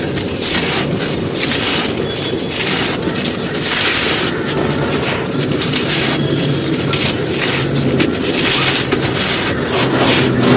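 Dry molded black sand shapes crumbling and crunching: a continuous gritty crackle that surges irregularly, again and again.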